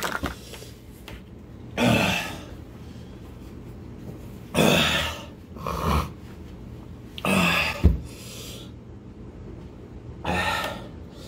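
A man's heavy, gasping breaths, five of them a couple of seconds apart, some half-groaned: the pained breathing of someone burning from a 9,000,000-Scoville chilli extract chocolate bar. There is a single low thump about eight seconds in.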